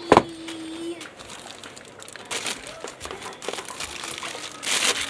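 Plastic and cardboard packaging crinkling and rustling as boxed action figures are handled, in several short bursts, with a sharp knock just after the start.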